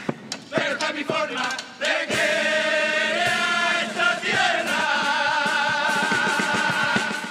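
A carnival chirigota, a comic chorus of male voices, singing in unison with guitar, punctuated by sharp percussion hits in the first couple of seconds. It then ends on one long held final chord with a wide vibrato that fades out near the end.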